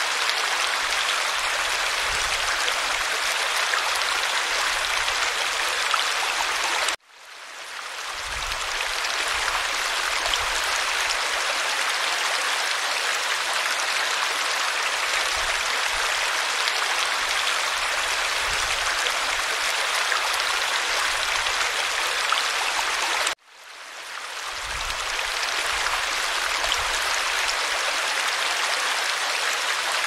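A small mountain stream pouring in a little cascade into a pool: a steady rush and splash of running water. It cuts out suddenly twice, about seven seconds in and again about sixteen seconds later, each time fading back in over a second or two.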